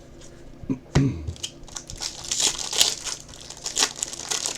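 Foil wrapper of a baseball card pack crinkling and being torn open, a run of crackly rustles, with a sharp tap about a second in.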